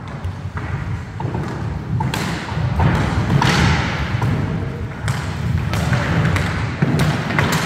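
Roller hockey play on a wooden sports-hall floor: a steady low rumble and scraping of skate wheels, with several sharp clacks and thuds of sticks and ball or puck, in a large hall.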